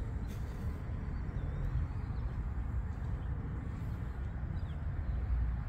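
Steady low outdoor background rumble with a few faint, brief bird chirps scattered through.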